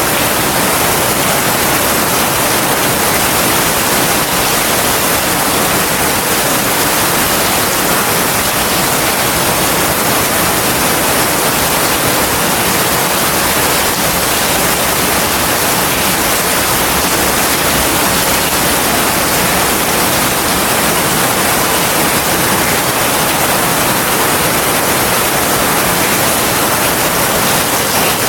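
Heavy rain falling steadily, an even hiss of water with no change in level.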